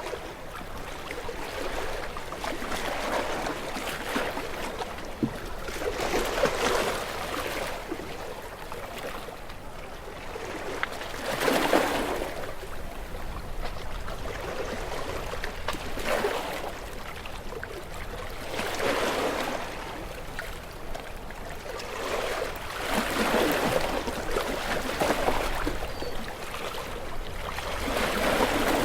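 Small waves breaking and washing onto a shore, each wash swelling and fading, about six times at intervals of four to five seconds.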